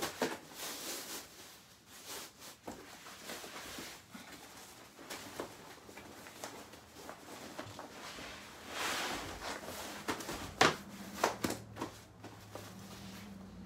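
Fabric rustling and handling noise as a quilted mattress protector is pulled over a crib mattress, followed by a few sharp knocks about ten to twelve seconds in as the mattress is lifted and set into a wooden crib.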